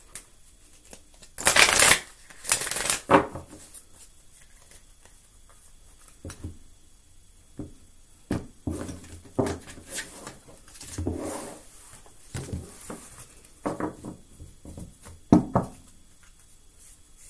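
A deck of oracle cards being shuffled by hand: a run of papery rustling shuffles, the loudest two about a second and a half in, followed by softer shuffles and card taps.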